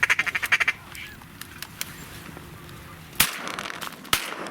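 Two shotgun shots about a second apart, the first the louder, after a short rapid clicking chatter at the start.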